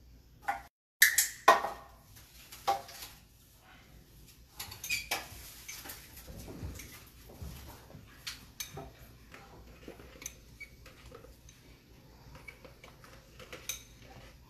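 Scattered light clicks, taps and rustles of a handheld target-training pole being handled against the enclosure, with two sharp knocks a little over a second in.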